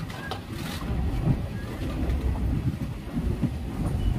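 Wind buffeting the microphone at the open doorway of a moving passenger train, an uneven low rumble mixed with the running noise of the coaches on the track.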